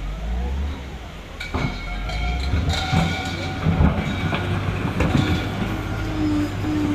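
A vehicle running with a steady low hum, and irregular knocks and rattles over it.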